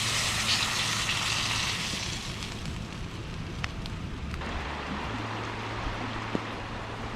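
Campfire burning: a loud hiss that drops away abruptly about four and a half seconds in, with a few sharp crackles.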